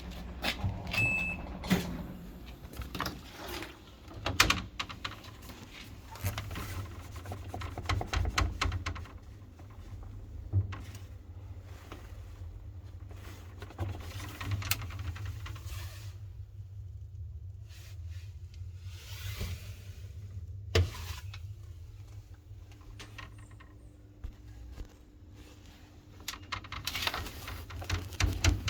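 Top-load washing machine running: a steady low rumble with irregular knocks and rattles over it, the noise it makes when washing.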